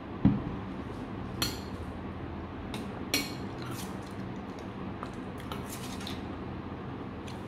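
A plastic mug set down on a table with a dull thud, then a metal spoon clinking and scraping against a stainless steel bowl of rice, with two sharp ringing clinks and several lighter taps.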